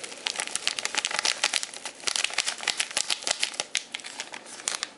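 Foil packet of pepper crinkling and rattling as it is shaken over a bowl: a fast, uneven run of dry crackles and taps.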